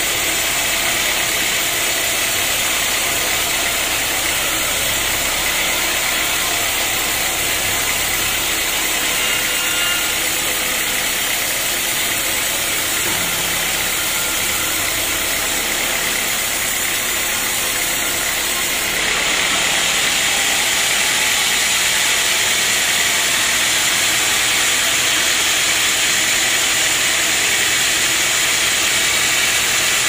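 Band sawmill running steadily as its blade cuts lengthwise through a large log: a continuous loud machine hiss and drone, stepping up a little louder about two-thirds of the way through.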